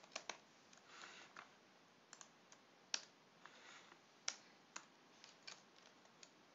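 Faint computer keyboard keystrokes: scattered, irregular single taps, a few of them sharper than the rest.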